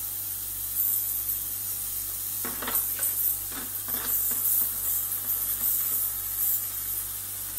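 Kaisi ultrasonic cleaner running with knife parts in soapy water: a steady low buzz under a sizzling hiss from the bath. A few short knocks between about two and a half and four seconds in as a hand moves the metal parts in the tank.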